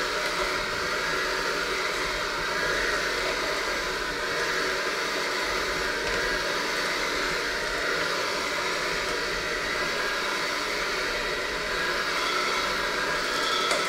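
Electric hand mixer running steadily, its beaters working a thick, crumbly dough in a stainless steel bowl.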